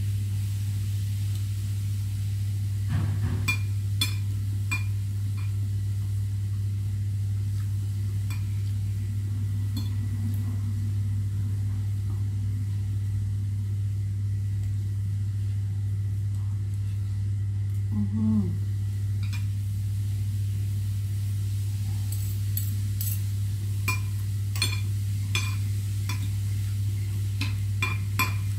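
Fork and spoon clinking and scraping against a ceramic plate while eating, in short clusters of sharp clicks a few seconds in and again near the end, over a steady low electrical hum.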